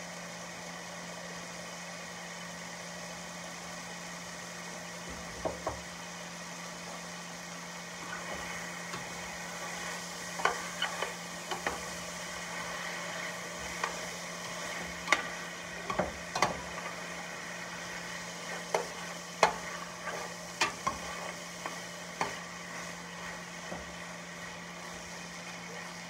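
Teriyaki-coated vegetables sizzling and steaming in a stainless steel pot over high heat, while a spoon stirs them, scraping and knocking against the pan in scattered sharp clicks from about five seconds in. A steady low hum runs underneath.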